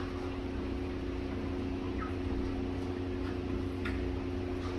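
Caged chickens giving a few short, faint calls, with sharp clicks at the start, about four seconds in and near the end. Under them runs a steady low hum.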